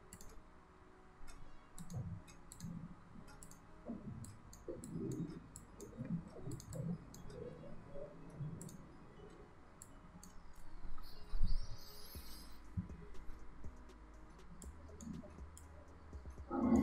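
Computer mouse clicking at irregular intervals. A single dull thump a little past halfway is the loudest sound.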